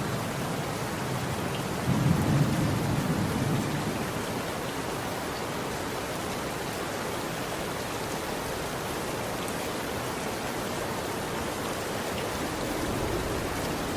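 Steady rain with rolling thunder: a low rumble swells about two seconds in and dies away over a second or two, leaving the rain alone, and thunder begins to rumble again near the end.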